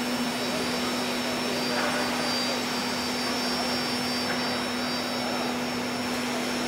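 Aluminium profile CNC drilling-milling machine running: a steady motor whir with one constant hum note and a faint high whine above it. There are no cutting strikes or changes in speed.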